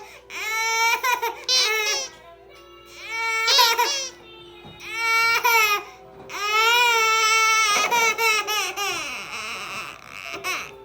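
A baby crying in about four long wails with short breaths between them, frightened by the beeping sound of a bumblebee anti-head-bump cushion. A steady electronic tone runs underneath.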